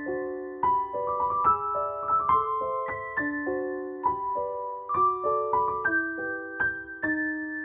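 Background piano music: a gentle melody of struck notes and chords, several notes a second, each ringing on briefly.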